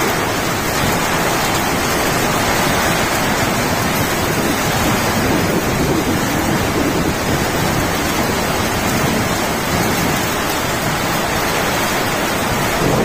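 Heavy rain pouring down in strong wind: a loud, steady, dense hiss with no breaks.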